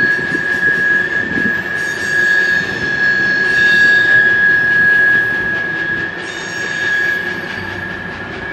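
Freight train of tank cars rolling past, with a steady high-pitched wheel squeal held throughout over the noise of the rolling wheels.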